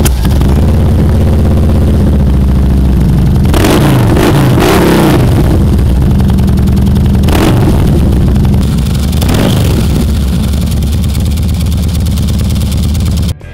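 2007 Harley-Davidson Night Train's Twin Cam 96 V-twin idling loudly through a Reaper 2-into-1 exhaust. The throttle is blipped: one longer rev a few seconds in, then two shorter blips, each settling back to a steady idle.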